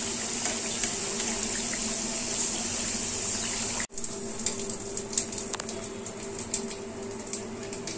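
Maida namkeen deep-frying in a pan of hot oil: a steady sizzle and bubble over a low steady hum. About four seconds in, the sizzle cuts off suddenly, leaving quieter scattered crackles over the hum.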